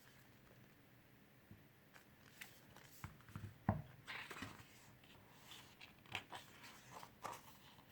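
Paper and packaging being handled: rustles and small clicks as the photo book is taken out and its pages are turned, with one sharper knock a few seconds in.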